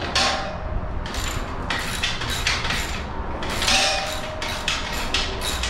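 A socket ratchet clicking in short repeated strokes as a 12 mm bolt is tightened on a steel roof basket, about two to three strokes a second, with a light metallic ring on some strokes.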